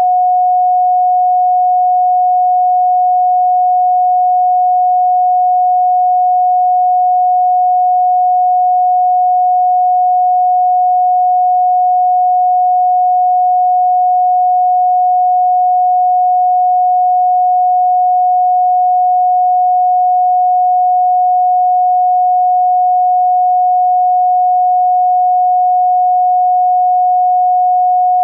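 A steady pure sine tone of about 728 Hz, held unbroken at one pitch and level.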